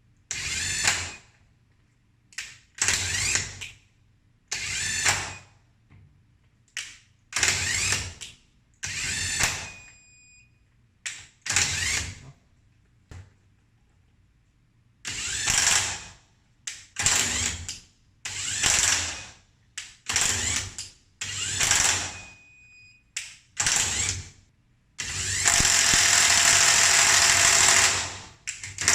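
Cordless impact wrench running in about a dozen short bursts of roughly a second each, with pauses between, as it tightens bolts. Near the end comes one longer continuous run of about four seconds.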